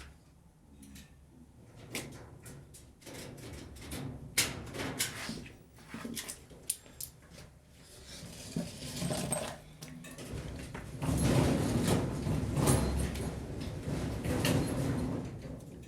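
Irregular knocks and clicks of tools and parts being handled, with a louder stretch of rattling and scraping in the second half.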